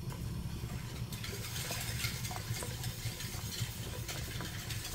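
Metal spoon stirring cornflour into milk in a bowl: a few faint clinks against a low steady hum.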